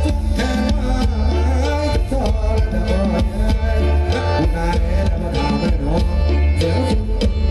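Loud Thai ramwong dance music from a band, with a heavy drum beat and bass under a wavering melody line.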